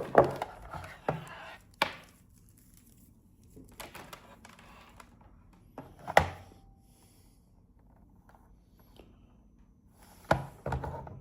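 Cutters snipping through the alarm unit's cables. There are a few sharp clicks in the first two seconds, a louder snap about six seconds in, and rustling handling noise between and near the end.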